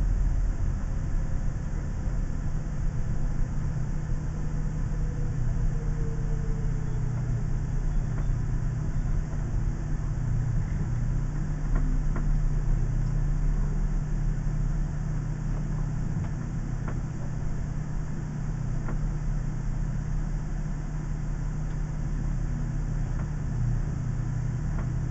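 Diesel-pusher motorhome engine running at a crawl and then idling as the coach comes to a stop: a steady low drone. A faint whine falls in pitch over the first several seconds.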